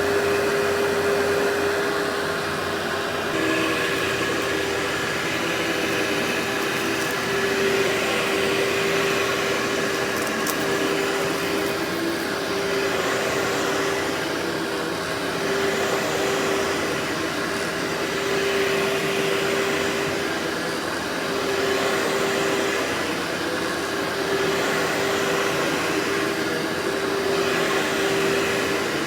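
Workhorse vacuum cleaner running continuously, a steady motor hum under a rushing airflow hiss that swells and eases every few seconds.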